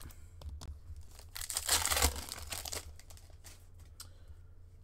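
A hockey card pack's wrapper being torn open and crinkled by hand, a dense rustle starting about a second in and lasting about a second and a half, with small clicks of card handling around it.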